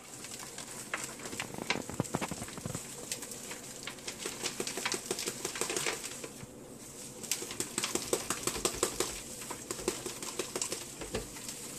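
Irregular crackling, tapping and rustling as a potted plant's root ball is broken apart by hand, soil crumbling and dropping into a plastic basin while the leaves rustle.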